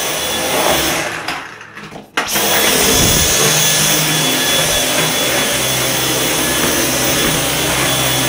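Dyson cordless stick vacuum running with a steady high whine. About a second in it cuts out and winds down, then just after two seconds it starts again, spinning up with a short rising whine, and runs steadily.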